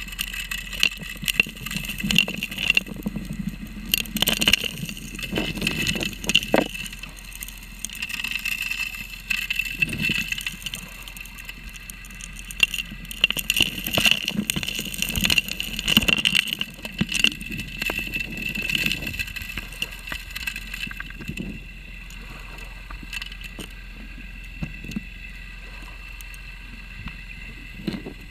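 Underwater recording of a 3-inch gold dredge's suction nozzle drawing in gravel: stones clatter and knock irregularly into the nozzle and hose over a steady drone from the dredge. The clatter dies away about three-quarters of the way through, leaving the drone.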